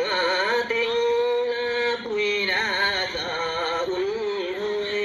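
A woman's voice singing a slow traditional folk song of greeting for the festival, in long held notes with a wavering pitch.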